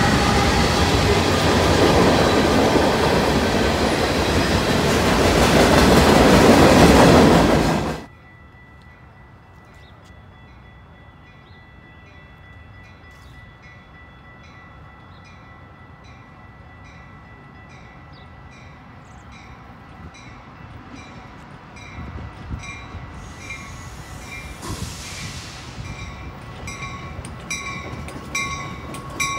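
Canadian Pacific freight train's tank cars and covered hoppers rolling past loudly on the rails, cut off abruptly about 8 seconds in. After that an evenly repeating ring, about one and a half strokes a second, and a Metra commuter train approaching, its rumble building steadily toward the end.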